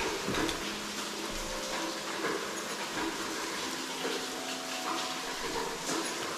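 Water from a small waterfall, a thin curtain of water, splashing down steadily as an even hiss.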